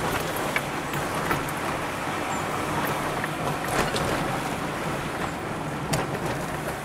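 Car cabin noise while driving slowly: a steady rumble of engine and tyres on the road, with a few sharp clicks or knocks.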